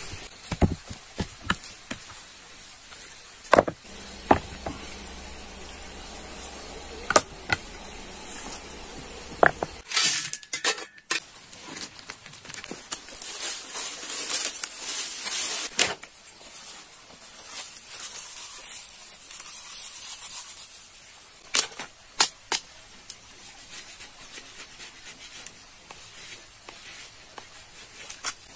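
Stones and dry bamboo being handled: scattered sharp knocks and cracks, with stretches of dry leaves rustling, over a steady high hiss.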